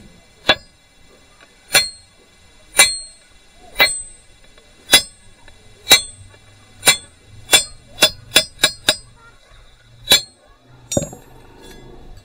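Hammer striking a chisel held against the steel socket of a pharsa axe head, each blow a sharp metallic clang with a short ring. About fourteen blows, roughly one a second, quickening into a fast run of strokes about eight seconds in.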